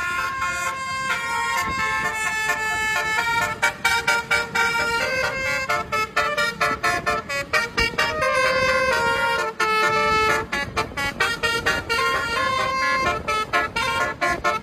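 Basuri-type multi-tone bus horn, the Indonesian 'telolet' horn, playing a fast tune of short notes that step up and down in pitch.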